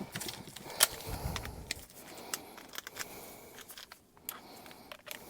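Scattered light clicks and knocks, as the removed furnace blower assembly is handled and carried.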